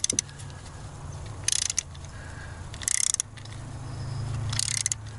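Ratcheting torque wrench tightening a spark plug in a Volvo B5244S five-cylinder head: four short bursts of rapid ratchet clicks, about every one and a half seconds, as the handle is swung back between pulls. The plug's compression washer is still crushing, so the 30 Nm setting has not yet been reached. A steady low hum runs underneath.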